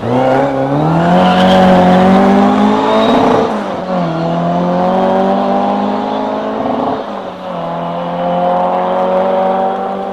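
Rally car engine accelerating hard, its pitch climbing through the gears, dropping at two upshifts about four and seven seconds in.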